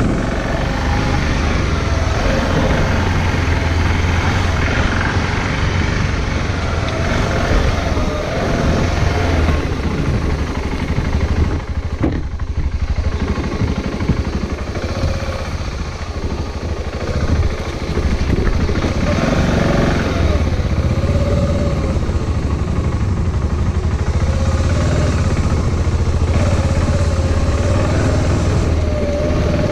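Steady rumble of riding noise, heaviest at the low end, with a faint wavering hum through it and a short dip about twelve seconds in.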